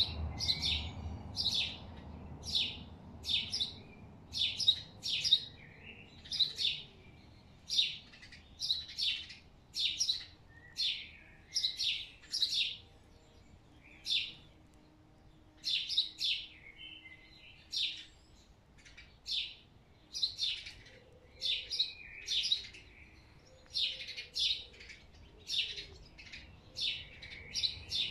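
A small bird chirping over and over in a steady run, short sharp chirps at about one or two a second.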